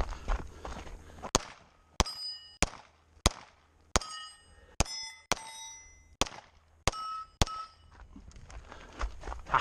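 Pistol shots fired at steel plates, about ten in six seconds, most followed by the bright ringing ding of struck steel.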